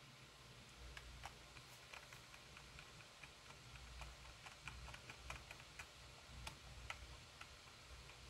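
Faint, irregular clicking, a couple of clicks a second at uneven spacing, over a low steady hum; otherwise near silence.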